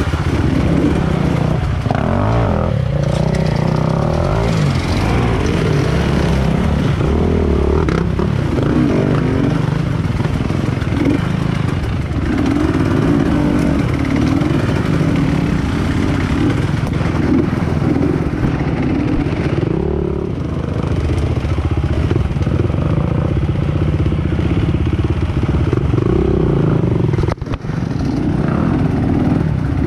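Trail motorcycle engine running, its pitch rising and falling with the throttle as the bike is ridden.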